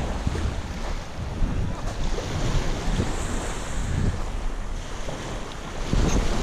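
Wind buffeting the microphone in uneven gusts, over small waves washing up onto a sand and gravel beach.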